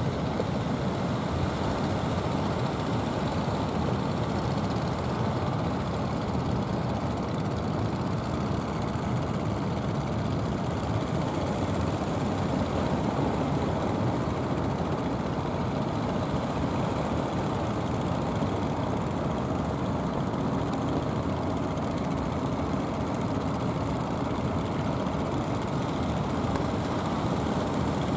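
Steady low rumble of wind and waves mixed with the engines of motorised outrigger fishing boats under way.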